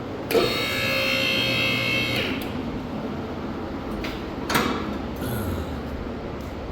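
Car lift's electric hydraulic pump motor runs with a steady whine for about two seconds and stops, followed by a single metallic clunk a couple of seconds later.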